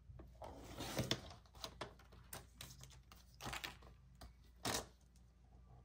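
A clear sliding paper trimmer cutting laminated vellum: the cutting head is run along its rail with a short rasp about a second in, then the laminated sheets are handled and set on the trimmer's plastic base with a few separate clicks and rustles.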